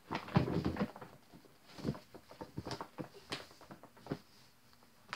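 A large paper gift bag being handled and rummaged through: a burst of paper rustling in the first second, then a few scattered light knocks and crinkles.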